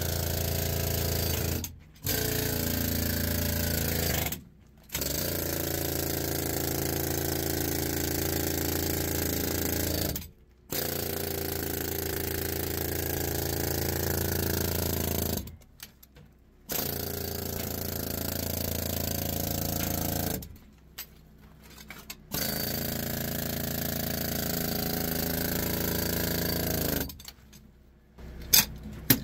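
Pneumatic jackhammer (air-powered rock breaker) breaking rock, running in runs of two to five seconds with brief pauses between.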